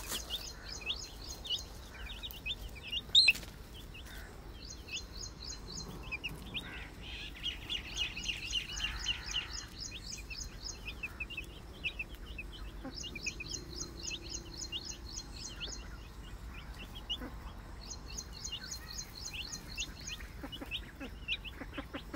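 Baby chicks peeping over and over, each peep a short falling note, with recurring runs of rapid, higher-pitched chirping. A sharp click sounds about three seconds in.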